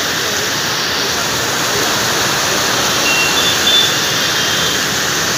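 Heavy rain pouring steadily, a dense even hiss. A faint high-pitched tone sounds briefly about three seconds in.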